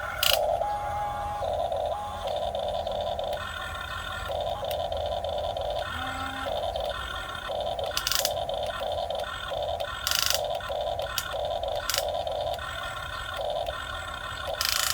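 Huina 1550 RC excavator's small electric motors whining in short stop-start bursts as it is worked by remote. A few brief harsh noises break in among the bursts.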